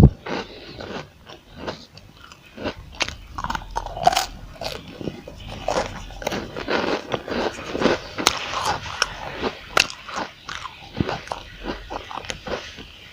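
Biting into and chewing a crispy chocolate roll, a run of irregular crunchy crackles.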